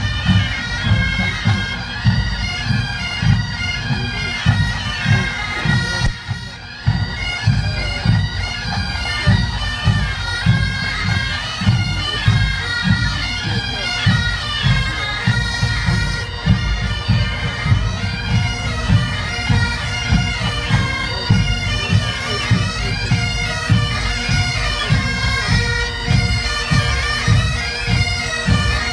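Massed Highland pipe band playing on the march: bagpipe drones and chanters carrying a melody over a steady beat of about two drum strikes a second.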